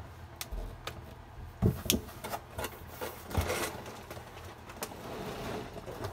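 Cardboard boxes being shifted and lifted: a few scattered knocks and thumps, the loudest just under two seconds in, with scraping and rustling around three to four seconds.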